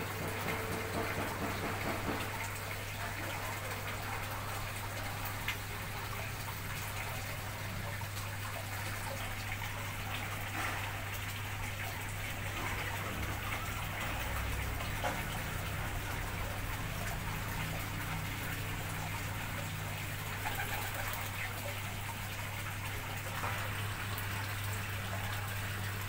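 Steady rushing noise like falling rain or running water, with a constant low hum underneath and a few faint clicks.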